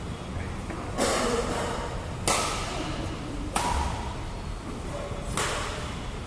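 Badminton rally: four sharp racket strikes on the shuttlecock, a second or two apart, each ringing on in the echo of a metal-walled hall.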